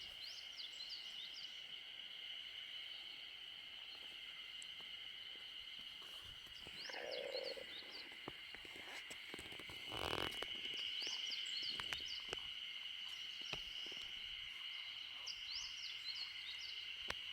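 Faint chorus of frogs calling: a steady high trill, with clusters of chirping calls every few seconds. A brief rush of low noise about ten seconds in.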